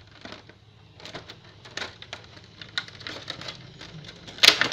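Thin clear plastic bag crinkling and crackling in the hands as it is worked open, in scattered short crackles with a louder burst near the end.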